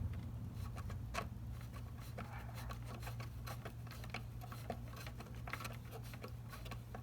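Faint scattered clicks and scrapes of a screwdriver turning a small screw while pliers hold the nut, over a steady low hum.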